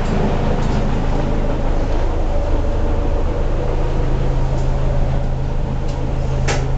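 A houseboat's engine running steadily, a low, even drone heard inside the cabin. A short click near the end.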